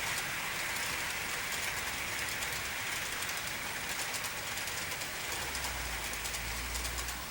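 A model train without an onboard sound system running along the track: a steady rolling noise of wheels and drive, dotted with many fine clicks. A low rumble joins in about five seconds in.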